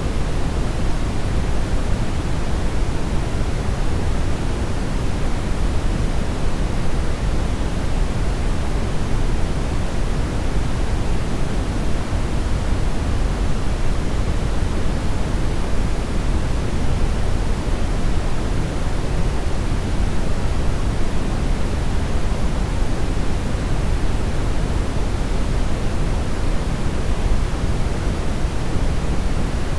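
Steady brown noise: an even, deep rushing hiss, strongest in the bass and falling off toward the treble, with no change over time.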